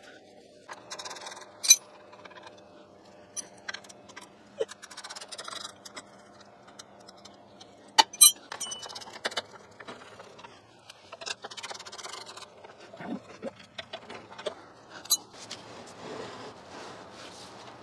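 Hand tools and steel parts clinking, rattling and scraping as the lathe's single-phase motor is worked loose from its pivoting mount and drive belts. Sharp metallic clinks come about two seconds in, and a louder pair about eight seconds in.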